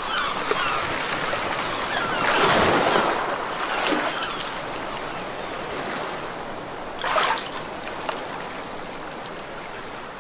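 Rushing-water sound effect like surf: a steady wash that starts suddenly, swells about two to three seconds in, and surges briefly again around seven seconds.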